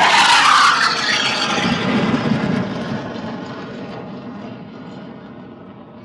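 Jet aircraft flying past, loud at first and then fading steadily into the distance, its pitch sinking slightly as it goes.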